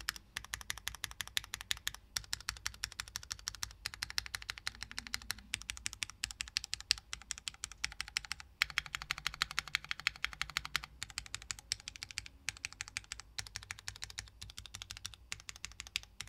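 Fast typing on a Tofu60 2.0 mechanical keyboard with Cherry MX Hyperglide Black linear switches, PBT keycaps and a polycarbonate plate. It is a quick, continuous patter of keystrokes broken by a few short pauses.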